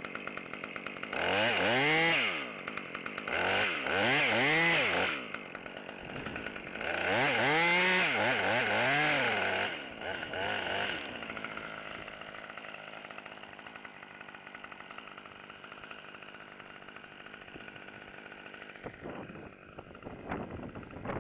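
Two-stroke top-handle chainsaw, a Husqvarna T540 XP, revving up three times, each burst a second or three long with the pitch climbing and falling, then dropping to a steady idle about eleven seconds in. A few sharp clicks come near the end.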